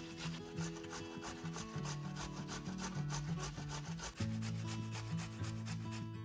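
Raw potato being coarsely grated on a metal box grater: quick, even rasping strokes, about five a second.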